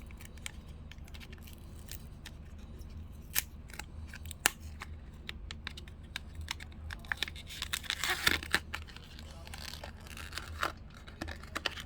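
Small cardboard blind box being opened by hand to reach an enamel pin: scattered sharp clicks and crinkles of cardboard and packaging, with a denser burst of crinkling about eight seconds in. A steady low hum runs underneath.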